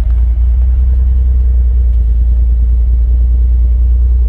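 Mitsubishi 3000GT VR-4's 6G72 twin-turbo V6 idling, heard from inside the cabin as a steady low rumble.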